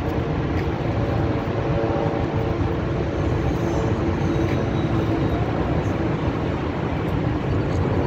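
Horseshoe Falls at Niagara: a steady, deep rushing roar of heavy falling water, unchanging throughout.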